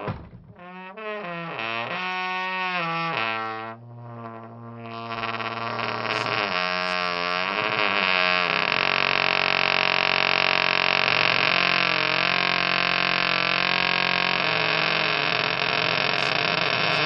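Wooden door creaking on its hinges. Several short creaks bend up and down in pitch, then from about five seconds in one long, louder, drawn-out creak.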